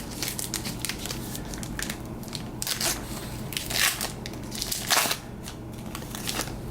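Trading cards being slid and flipped one behind another by hand, a run of crisp rustles and snaps with louder swipes about three, four and five seconds in.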